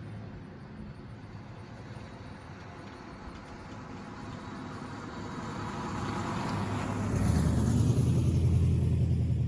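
1971 Oldsmobile Cutlass S driving by: its engine and tyre noise grow steadily louder as it approaches. A deep engine rumble is loudest in the last two seconds as it passes close.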